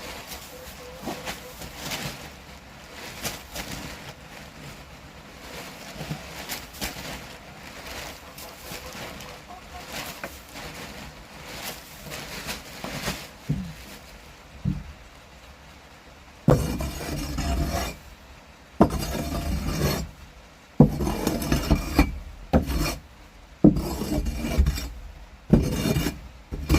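Wood shavings being scraped and spread across a chicken coop floor: faint rustling and scratching at first, then, about two-thirds in, a run of louder scraping strokes, each about a second long.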